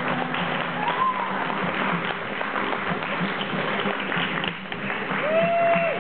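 Audience applauding, with a few voices calling out over the dense clapping about a second in and again near the end.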